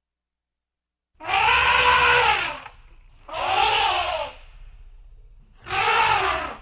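Three loud, harsh animal calls, each about a second long, their pitch rising then falling, starting about a second in after dead silence.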